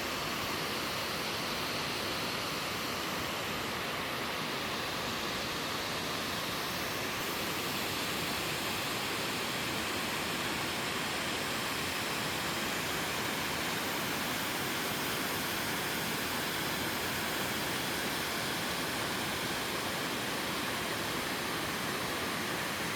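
Waterfall in a mountain valley stream pouring water, a steady, unchanging rush of falling water.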